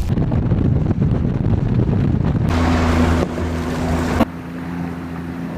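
Boat motor running with a steady low hum; wind buffets the microphone with a loud rumble for the first couple of seconds.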